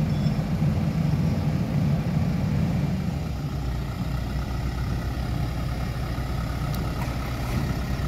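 Heavy diesel engine idling steadily, a low rumble that grows quieter about three seconds in.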